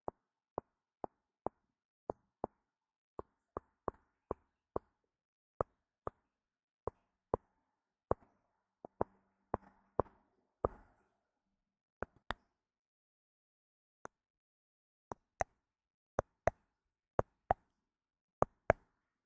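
Light, sharp taps and clicks on a hard object, often in pairs, coming about every half second with a short pause past the middle.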